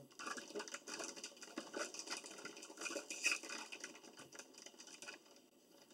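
A Doritos chip bag crinkling and rustling as chips are taken out by hand: a dense, irregular run of crackles that thins out near the end.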